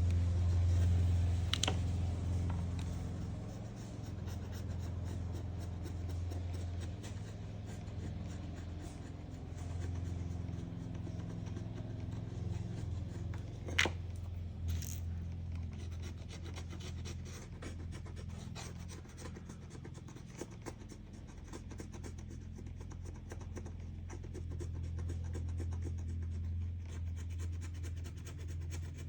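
Scratching and rubbing on the LCD panel's glass as the old polarizing film and its residue are worked off, over a steady low hum, with one sharp click about halfway through.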